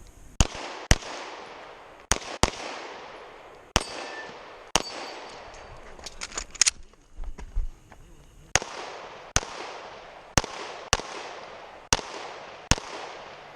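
A 9mm service pistol firing a string of about a dozen shots, mostly in quick pairs. About halfway through there is a pause of a couple of seconds filled with small metallic clicks and a low thump before the pairs resume.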